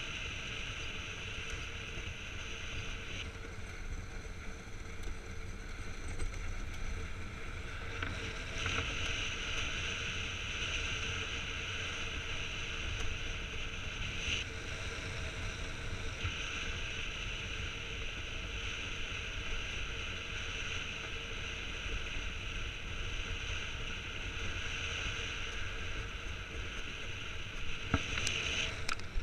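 Iceboard runners gliding fast over lake ice: a steady scraping hiss with a high ringing edge that gets softer and louder in stretches, over wind rumble on the microphone. A few sharp clicks near the end.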